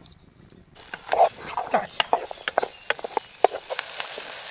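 Chopped onion sizzling in hot oil in a camping pan, stirred with a wooden spoon that knocks and scrapes against the pan in quick irregular clicks. The sizzle starts abruptly about a second in.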